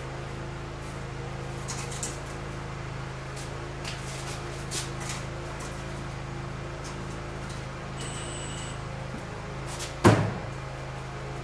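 A steady low hum with a few faint clicks and taps, a short high beep near eight seconds, and then one sharp, loud knock about ten seconds in.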